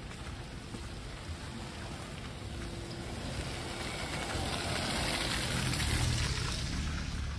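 A car driving slowly past on a slush-covered street: tyres hissing through wet snow over a low engine rumble, growing louder to a peak about six seconds in as it passes close.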